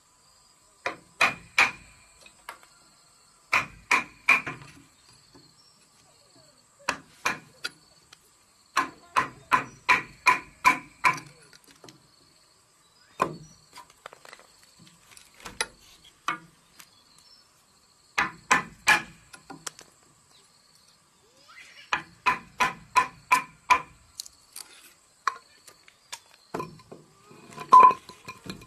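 Hammer driving a chisel into a wooden beam to cut out a joint notch: sharp strikes with a short metallic ring, in quick runs of two to seven blows separated by pauses, the loudest blow near the end.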